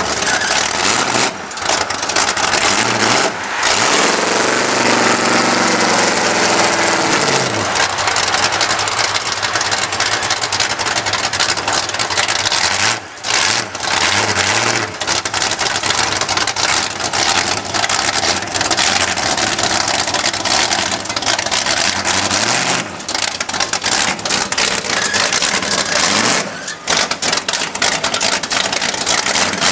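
Mud truck's engine running, revved up and back down a few times over a steady rushing noise.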